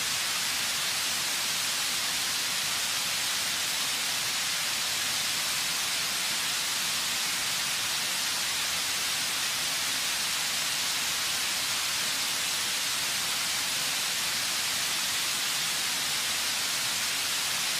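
Steady, unbroken rush of water pouring over a river waterfall and through the rapids below it, heard as an even hiss.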